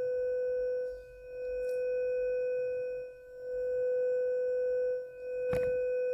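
A steady mid-pitched test tone plays from the Amiga 600's repaired audio output through headphones, dipping briefly about every two seconds. A sharp knock comes about five and a half seconds in. Left and right channels give the same volume, a sign that the replaced op-amp stage is now working.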